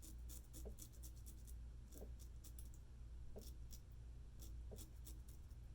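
Straight razor scraping through lathered beard stubble in short strokes: faint, crackly scratches over a low hum.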